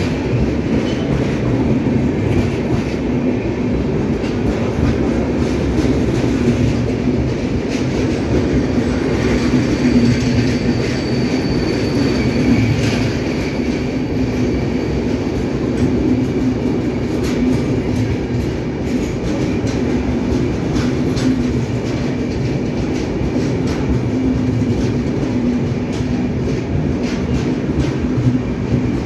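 Indian Railways express train coaches rolling past: a continuous rumble of wheels on the rails, with irregular clicking and clatter from the wheels and a faint high wheel squeal about ten seconds in.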